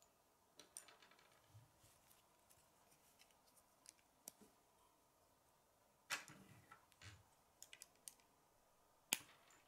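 Plastic K'nex rods and connectors being handled and snapped together: scattered soft clicks and taps, with a few sharper clicks a little after six seconds and the loudest one near the end.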